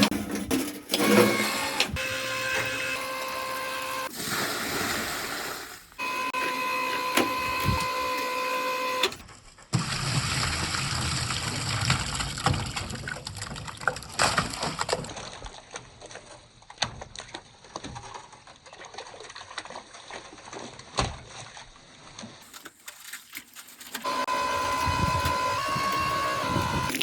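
Well-cleaning equipment at work in several short cuts: a steady electric motor whine from the machinery alternates with water splashing and sloshing, with scattered knocks.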